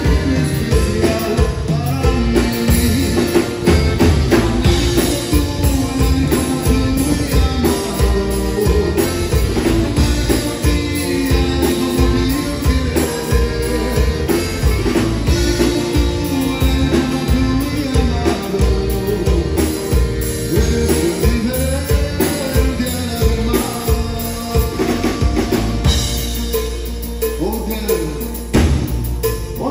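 Live norteño-style band playing a song: accordion with guitar, bass and a drum kit keeping a steady beat. Near the end the drums drop back under a held low note.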